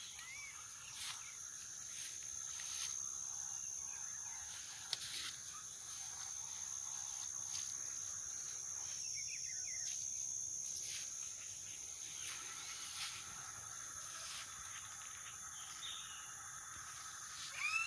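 Wild insects calling in the vegetation: a steady high-pitched drone with short pulses repeating about once a second, joined by a lower steady tone in the second half and a few short rising calls.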